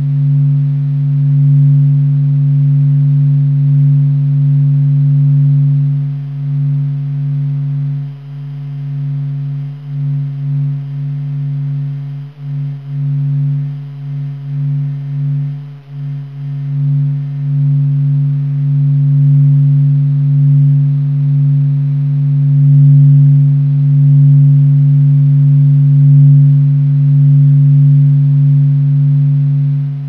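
Sonified solar oscillations: the Sun's sound waves (low-degree p-modes near 3 mHz, the five-minute oscillations), measured as Doppler velocity by SOHO's Michelson Doppler Imager and sped up 42,000 times. They are heard as a low droning hum with a fainter higher tone above it. The pitch stays steady while the loudness swells and fades, and it falters and dips repeatedly about a third of the way in before steadying again.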